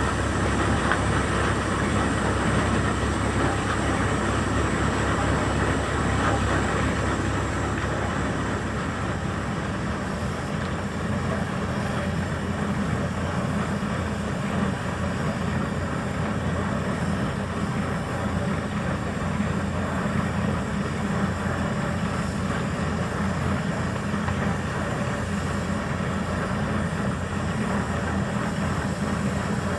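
Steady, continuous engine or machinery noise with no pauses, easing slightly about ten seconds in.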